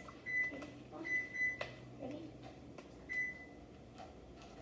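Short electronic beeps from a kitchen appliance such as a microwave keypad, five of them at uneven intervals, with a sharp click in between.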